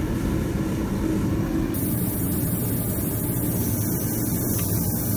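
Steady roar of a blacksmith's shop with no hammer blows. Its tone shifts slightly a little under two seconds in.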